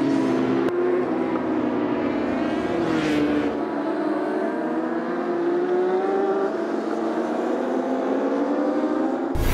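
Endurance-racing superbike engines running at speed on the circuit, their pitch rising and falling as they are ridden through the gears. One bike passes close about three seconds in.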